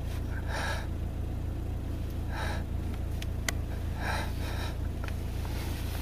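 A car engine's steady low hum heard inside the cabin, with a person breathing heavily close to the microphone three times, a few seconds apart, and a single small click about halfway through.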